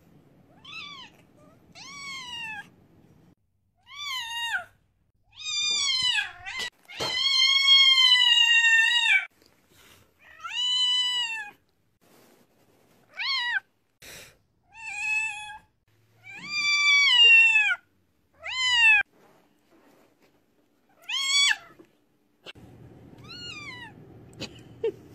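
A deaf white long-haired cat meowing loudly over and over in excitement: about a dozen high calls, most falling in pitch, one held for over two seconds.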